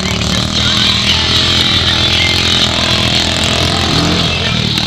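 Honda Pioneer 500 side-by-side's single-cylinder engine running steadily as it drives along a muddy trail, with a constant hiss over the engine note.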